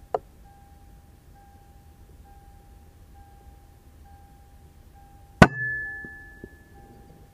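A single shot from an FX Impact M3 .22 PCP air rifle a little over five seconds in: a sharp crack followed by a high metallic ring that fades over about a second. A smaller click comes just after the start.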